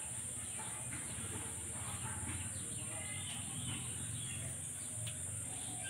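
Outdoor rural ambience: a steady high-pitched insect drone with faint, scattered bird chirps and a low hum underneath.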